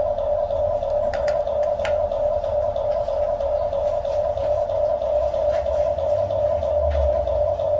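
A steady, unbroken high whine of a small electric motor, as from a radio-controlled model's motor or hydraulic pump, with a low rumble beneath and a few faint clicks.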